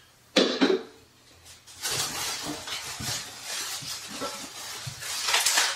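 Unpacking noise: a sharp knock about half a second in, then packaging rustling with small clinks and knocks, with a loud rustle near the end.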